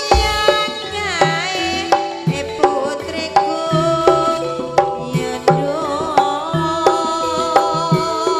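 Live Javanese campursari band music. Kendang hand-drum strokes keep a steady beat about every 0.7 s under a pitched melody with sliding notes.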